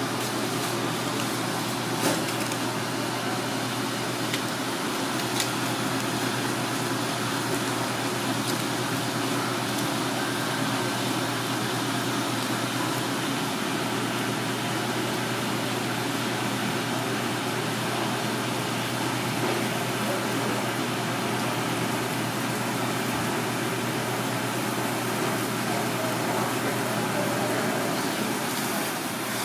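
Steady drone of kitchen ventilation, with a couple of sharp clicks as a knife works the slipper lobster tail against a plastic cutting board.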